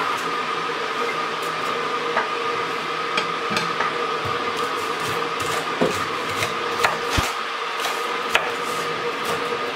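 Kitchen knife chopping a yellow bell pepper on a wooden cutting board: irregular knocks of the blade on the board, over a steady hum.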